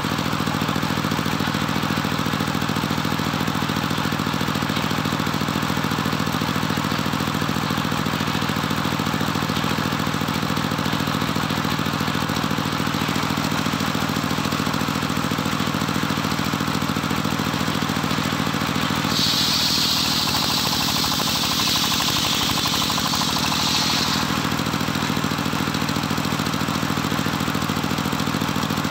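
Engine of a homemade circular sawmill running steadily, driving the big saw blade through johar wood. About two-thirds of the way through, a loud high whine lasts about five seconds as the blade cuts into the log, with the engine's note wavering slightly under the load.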